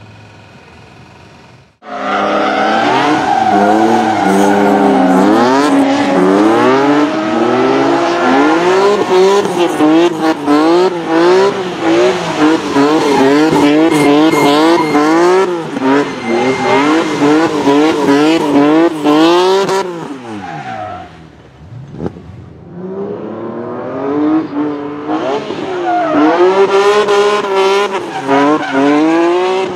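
BMW E30 drift car's engine revving hard under full drift, its revs rising and falling over and over as the throttle is worked, with the rear tyres squealing and spinning. Around twenty seconds in the engine drops away briefly, then builds up again.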